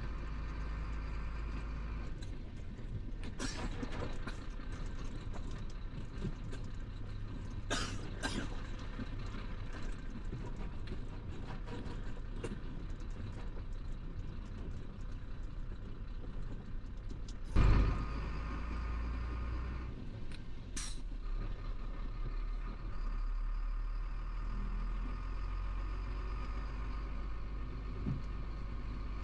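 Cab interior of a Chenglong 375 truck on the move: the diesel engine runs steadily, with a few short air hisses and one loud thump about two-thirds of the way through.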